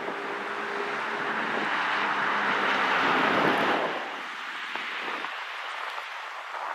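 A motor vehicle driving past, growing louder to a peak about three and a half seconds in and then fading away.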